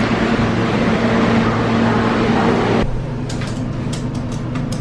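Steady rumble and rush of a moving public transit vehicle heard from inside. About three seconds in it cuts abruptly to a quieter steady hum with a few sharp clicks.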